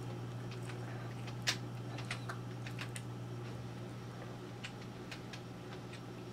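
A person chewing pizza: irregular soft mouth clicks and smacks, the sharpest about a second and a half in, over a steady low hum.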